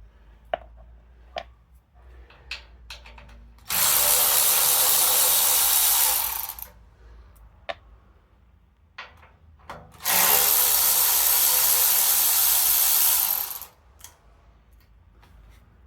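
A power driver spinning twice, about three seconds each run, undoing bolts on a dumper's fuel tank. Small clicks and knocks of metal parts are heard between the runs.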